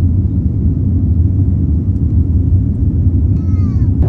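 Steady low rumble of a Boeing 787 airliner in flight, heard from inside the passenger cabin. A short falling tone comes near the end.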